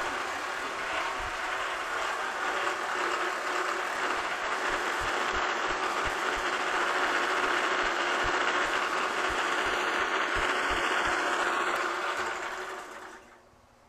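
Horizontal metal-cutting bandsaw running and cutting through half-inch cold-rolled steel bar, a steady machine noise with irregular low knocks. Near the end the saw shuts off as the cut completes and the noise dies away.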